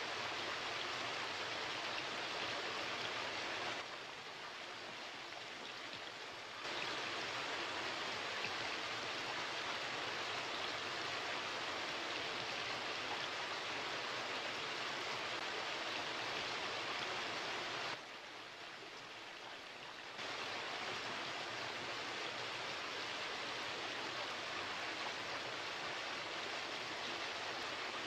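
Steady rush of running water from an indoor stream or water feature, dipping quieter twice for a few seconds.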